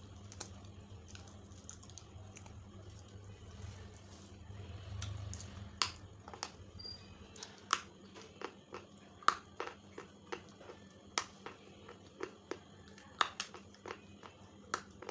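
Slate pencils being bitten off and crunched between the teeth: sharp, separate crunching snaps, irregular and about half a second to a second apart, starting about six seconds in.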